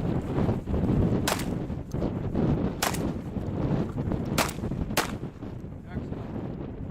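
Shotgun firing four shots, the first three about a second and a half apart and the last following closely on the third.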